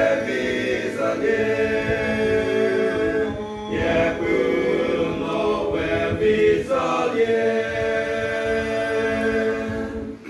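Male voice choir singing a cappella in harmony, holding long chords that change every second or two.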